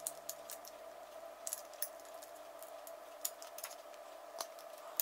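Irregular small metal clicks and taps of an adjustable wrench and locking pliers on a brass pressure-washer quick-release fitting as it is worked tight, over a faint steady hum.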